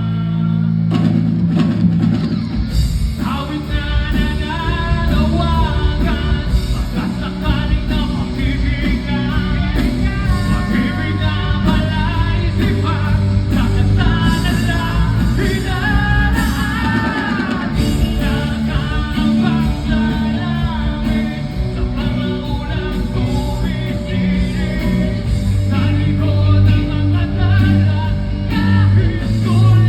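Rock band music with guitar and drum kit, a melodic lead line bending in pitch over a steady beat.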